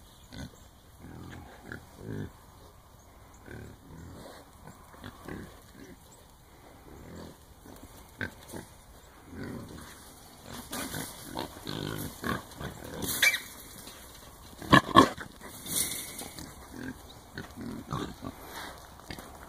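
A herd of feral hogs in a corral trap making many short grunts as they mill about. About three-quarters of the way through come two sharp, louder sounds close together.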